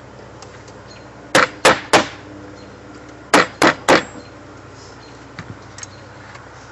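Hammer blows: two sets of three quick, sharp strikes about a third of a second apart, with a few faint taps near the end.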